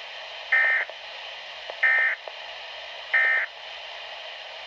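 Weather radio SAME alert data bursts: three short, evenly spaced bursts of buzzy two-tone digital data over steady radio hiss.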